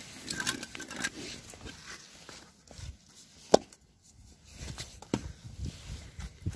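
Handling noises of an aerosol lubricant can being picked up and readied: scattered light clicks and rustles, with one sharp click about three and a half seconds in.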